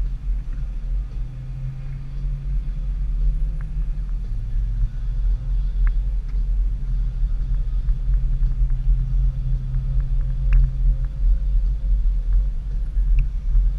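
Low rumble of a car or truck driving over packed snow, engine and tyre noise together. The engine note drops about four seconds in and rises again about seven seconds in.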